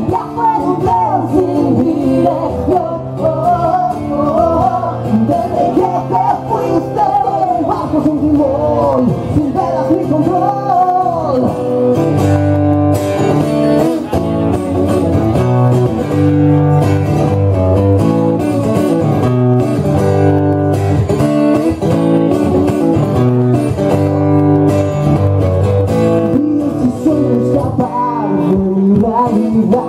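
Live acoustic song: a man singing over a strummed acoustic guitar. About twelve seconds in the voice drops out and the guitar carries on alone, strumming chords in a steady rhythm, until singing comes back near the end.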